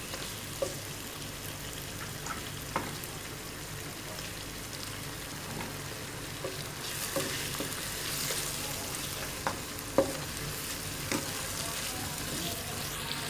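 Chicken, tomato and onion masala sizzling in a wok while a wooden spatula stirs it, with a few short knocks of the spatula against the pan, the loudest about ten seconds in.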